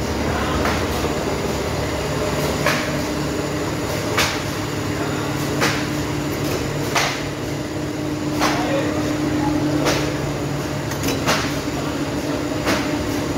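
Shoe-factory machinery running with a steady hum, with a sharp clack repeating about every second and a half from a gantry-mounted press.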